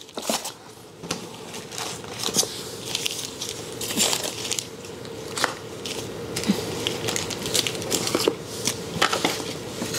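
Plastic food packaging crinkling and rustling as packaged groceries are handled and set into cardboard boxes, with scattered light knocks and clicks.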